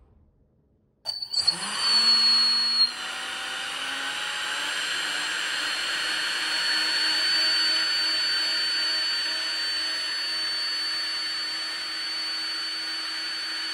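3D-printed electric ducted fan with a curved seven-bladed rotor starting up about a second in and running with a steady high-pitched whine. It is louder for its first couple of seconds, then settles and rises a little before holding steady.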